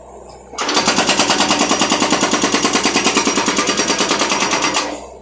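Hydraulic breaker hammer on a John Deere compact excavator pounding concrete: rapid, even blows that start about half a second in and stop shortly before the end. The excavator's engine runs underneath, heard alone before and after the hammering.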